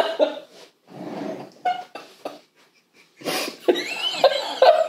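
A woman coughing and choking while struggling to swallow a slippery piece of sea cucumber. From about three seconds in, a man and a woman laugh hard in repeated short bursts.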